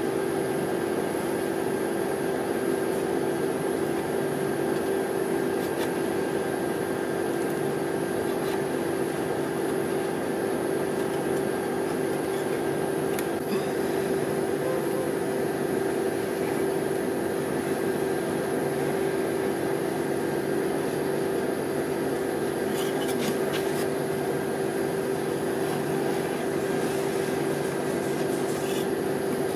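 Steady mechanical hum of a rolled-ice-cream machine's refrigerated cold plate, with a few faint scrapes and taps of a metal spatula on the frozen plate in the second half.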